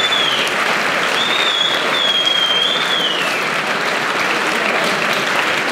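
Crowd applauding and cheering steadily. In the first half, a shrill wavering whistle is held for about two seconds.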